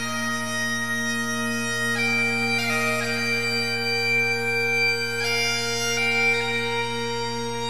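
Background music: bagpipes playing a slow tune of held notes over a steady drone.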